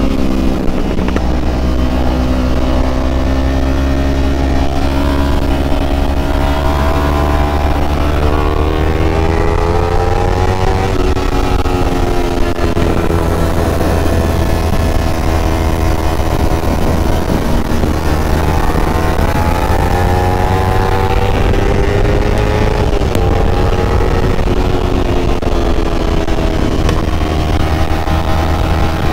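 Kawasaki ZX-25R's inline-four engine at riding speed. Its pitch climbs smoothly and drops back twice, over a steady rush of wind.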